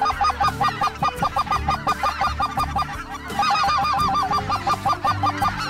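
Rapid, even strings of short honking waterfowl calls, about seven notes a second, with a brief break about three seconds in.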